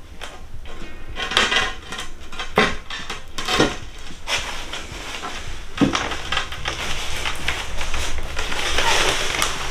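Irregular clinks, knocks and scrapes of hard objects, with a few sharper knocks, over a background music track.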